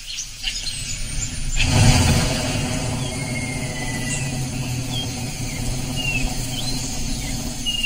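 A motor vehicle driving along a dirt track, its engine rumble and road noise starting suddenly about a second and a half in and running steadily. Birds chirp briefly over it.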